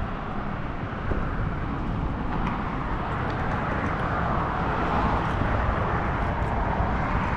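Steady hiss of passing road traffic mixed with wind rumbling on the microphone, growing a little louder toward the end.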